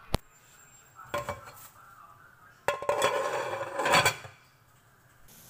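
Aluminium lid being put on a large aluminium cooking pot: a short clank about a second in, then a longer rattling, ringing clatter of metal on metal as the lid settles, stopping a little after the four-second mark.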